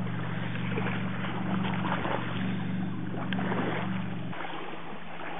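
A steady low motor hum over outdoor background noise, cutting off suddenly about four seconds in, with a few faint handling rustles.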